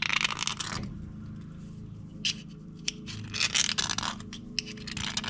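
Metal lathe running with a steady hum, while short scraping sounds come in three bursts: one at the start, one a little past two seconds, and one at about three and a half seconds in. This is typical of work on a small brass bush held in the lathe.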